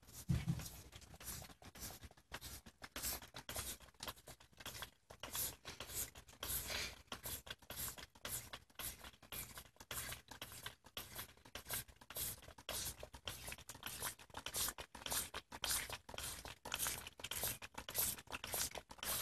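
A plastic trigger spray bottle squirting water into a drinking cat's mouth: a rapid, irregular run of short hissing squirts, several a second, with a low bump at the very start.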